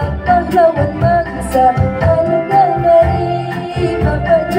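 A young woman singing solo into a handheld microphone over an instrumental backing with a steady beat. Her voice slides between held notes.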